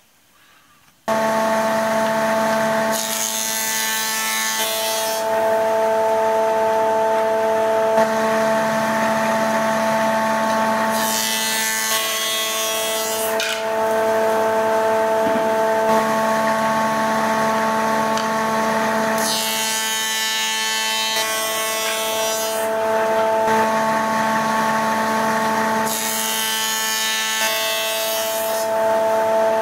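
Thickness planer running with a steady hum, cutting thin wooden strips in four separate passes. Each pass is a burst of high-pitched cutter noise of about two seconds, roughly every eight seconds.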